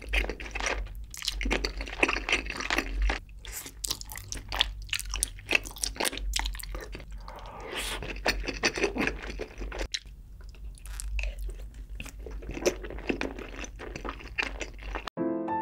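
Close-miked eating sounds of a man chewing spicy braised chicken with sausages and stew: irregular wet chewing, biting and mouth clicks. Piano music cuts in suddenly near the end.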